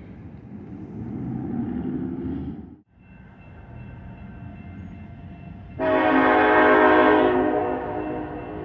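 Multi-chime air horn of a freight locomotive sounding one loud blast of about a second and a half, some six seconds in, after a low rumble. The train is still out of sight.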